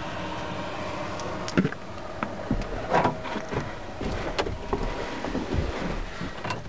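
Knocks and clicks from movement inside a haul truck's cab, over a steady background hum; the loudest knocks come about one and a half and three seconds in.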